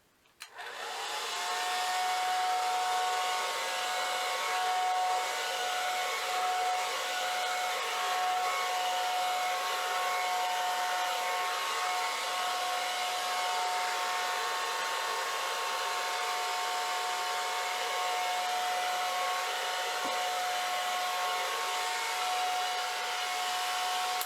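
Handheld hair dryer switched on about half a second in. Its motor whine rises briefly, then runs steadily with a rush of air as it blows wet acrylic paint across a pour.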